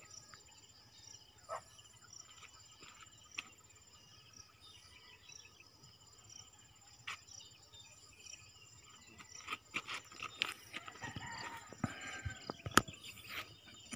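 Rural outdoor ambience: insects buzzing steadily in a high pitch with an even pulsing chirp, a few short high bird chirps now and then. In the last few seconds a run of sharp clicks and knocks comes in.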